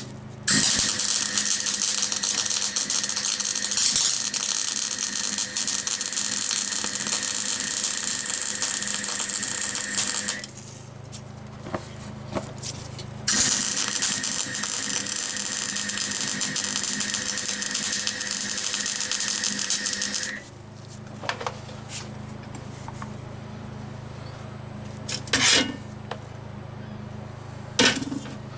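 Electric welding: two long weld runs of steady crackling arc hiss, about ten and seven seconds long, on a fabricated steel gearbox mount bracket. Between and after them a low steady hum continues, with three short brief bursts near the end, like quick tack welds.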